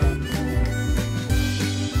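Background music with a steady beat and a harmonica melody.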